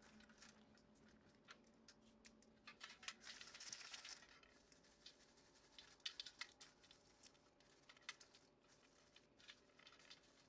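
Faint gritty rustling of dry cornelian cherry tarhana crumbles rubbed and stirred by hand in a metal sieve and steel pan, with scattered small ticks of grains on metal. It swells a few seconds in and again about six seconds in.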